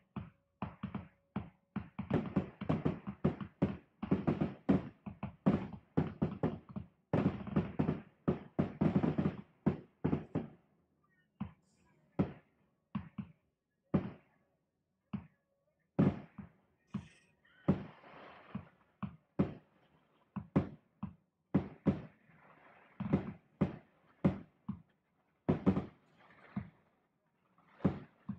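Aerial fireworks going off in a rapid run of bangs for the first ten seconds or so, then as separate bangs about once a second.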